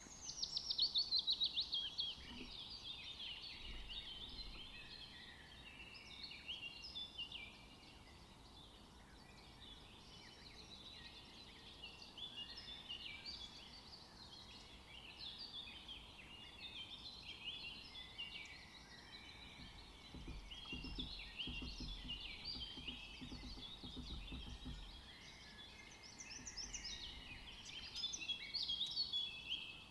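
Several songbirds singing and chirping together in a continuous dawn-chorus-like mix. It opens with a loud, fast trill that falls in pitch.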